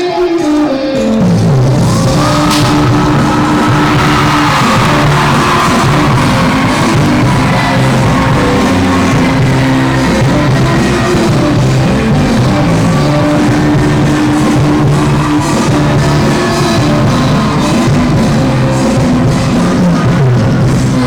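Loud music with singing, a full mix with a steady bass line that settles in about a second in.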